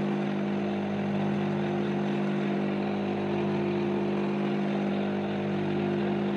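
Bench grinder running at steady speed: an even motor hum and whir with a constant pitch.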